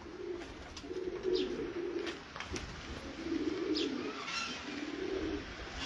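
Domestic pigeons cooing: a run of low rolling coos, one after another.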